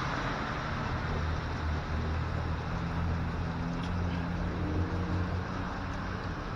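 Steady hiss of rain from a rain sound effect, with a low steady hum beneath it.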